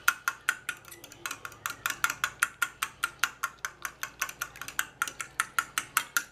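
Fork beating egg and milk in a glass bowl, clicking against the glass in a quick, even rhythm of about six strokes a second.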